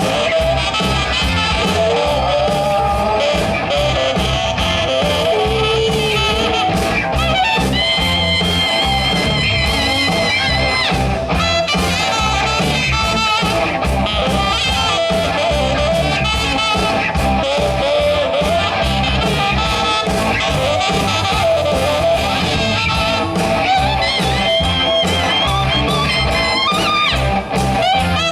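Live band playing an instrumental passage with no vocals: a steady bass and drum beat under a wavering lead melody line.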